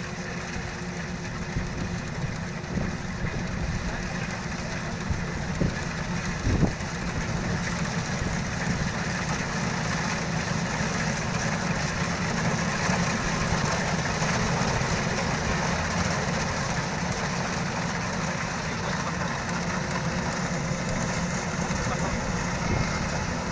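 Kubota DC-93 combine harvester's diesel engine running steadily, with a single sharp knock about six and a half seconds in.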